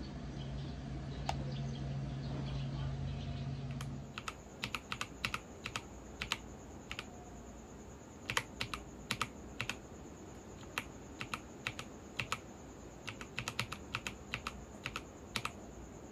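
A low steady hum for about four seconds, then computer keyboard typing: irregular key clicks in quick runs and pauses.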